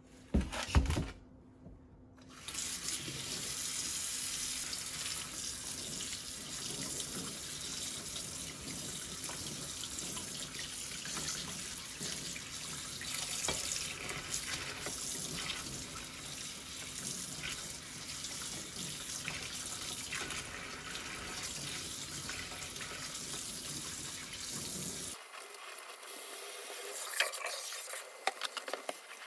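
Kitchen tap running steadily into a stainless steel sink, the water splashing over raw pork ribs being rinsed in a foam tray. Two sharp knocks come in the first second, and near the end the water noise drops away, leaving a few light clicks and knocks.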